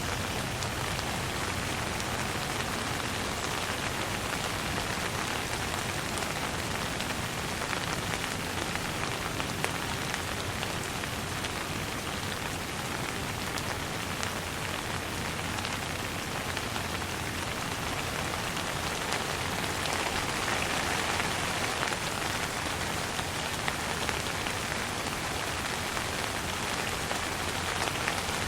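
Steady light rain falling on a surface, an even hiss with scattered drop ticks, swelling slightly about two-thirds of the way through.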